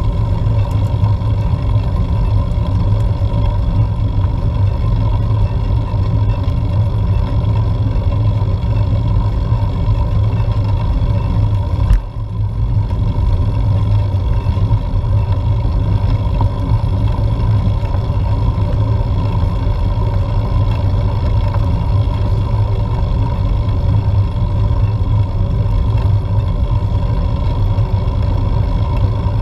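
Steady low rumble of wind and road noise on a GoPro Hero4 Silver mounted on a road bike climbing, with a constant hum underneath and a brief drop about twelve seconds in.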